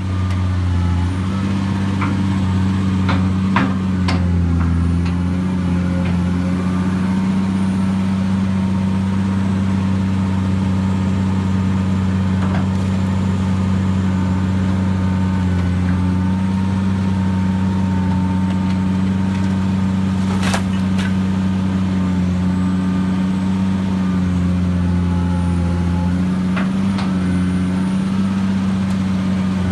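Caterpillar hydraulic excavator's diesel engine running steadily at working speed, a loud, even drone. A few sharp knocks and cracks of demolition debris break in, clearest about three to four seconds in and again about twenty seconds in.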